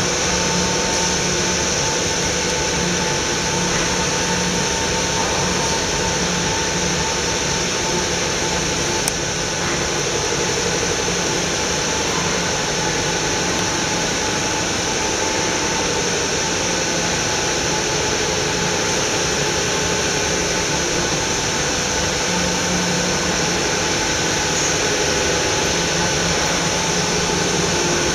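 Steady hum and hiss of running machinery, with one sharp click about nine seconds in.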